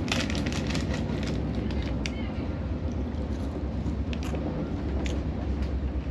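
Steady low rumble of a moving Indian Railways sleeper train heard from inside the carriage, with a few short sharp clicks and rattles.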